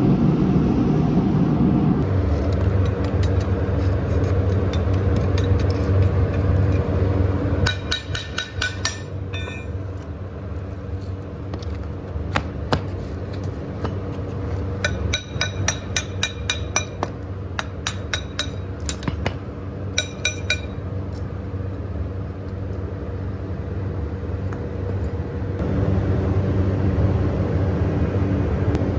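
Ringing metal-on-metal hammer strikes in quick runs of several blows, over a steady low hum.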